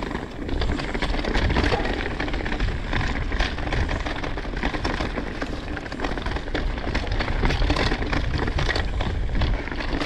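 Mountain bike rolling fast down a rocky trail: the tyres crunch and clatter over rocks and loose dirt and the bike rattles continuously, over a steady low rumble of wind on the microphone.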